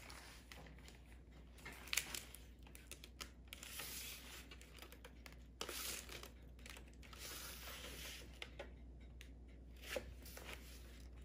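Thin vacuum-formed plastic mold being flexed and peeled away from a cast sugar piece: faint crinkling of the plastic with scattered sharp clicks as the sugar releases.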